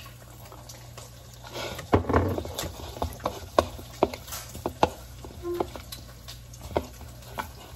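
Silicone spatula stirring and scraping food in a bowl, with scattered light clicks and taps against the bowl's side and a denser scraping stretch about two seconds in.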